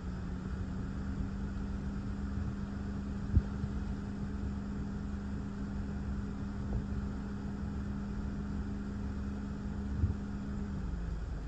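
Steady wind and rain noise heard from inside a car, with a low rumble. A steady low hum runs under it and cuts off near the end, and two sharp knocks come, one about three seconds in and one near the end.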